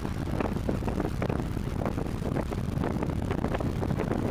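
Wind rumbling and buffeting on the microphone in uneven gusts, with a radio-controlled model Cessna 182 flying overhead, its propeller motor faint beneath the wind.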